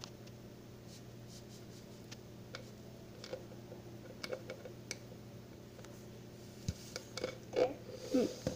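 Light scattered taps and clicks of a plastic container being handled, over a steady low hum, with a few brief louder sounds near the end.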